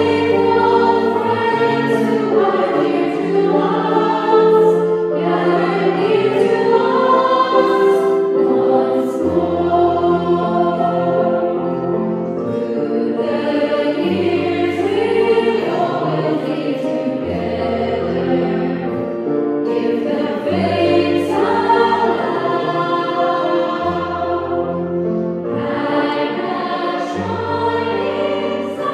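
A church choir of women and children singing a carol, led by a woman singing into a microphone, with held low notes from a keyboard underneath.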